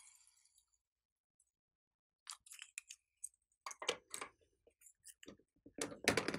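Hands handling slime toppings: scattered light clicks and crackles, then a louder crunchy squish near the end as fingers press into glossy slime studded with foam beads.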